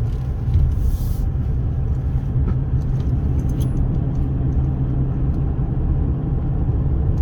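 2016 Ram 1500 pickup running with a steady low rumble.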